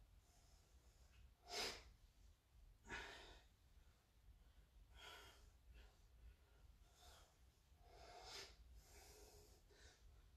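A man's faint, short exhalations from exertion, about six breaths, one every second or two.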